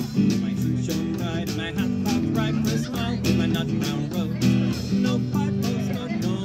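Live folk band playing an instrumental passage: acoustic guitar strumming over electric bass and a drum kit keeping a steady beat, with a fiddle that drops out within the first few seconds.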